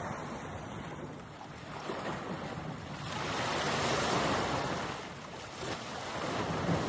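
Waves washing at the water's edge with wind rumbling on the microphone; the wash swells about three seconds in and eases off again.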